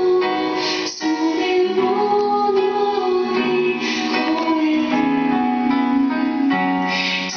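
A song playing: a female voice singing a slow melody over instrumental backing.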